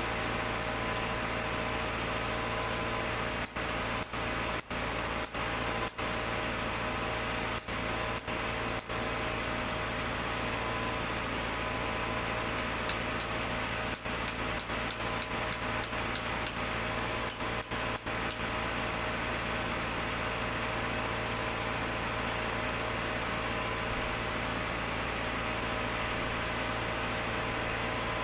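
An engine idling steadily throughout. About halfway through, a run of quick, sharp clicks sounds over it for several seconds.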